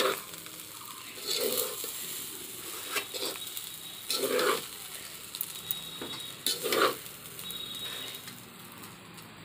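A spatula scraping and stirring fried rice in a large metal pot, about five strokes a second or so apart, over a faint sizzle. The rice is frying on low heat to brown it a little more.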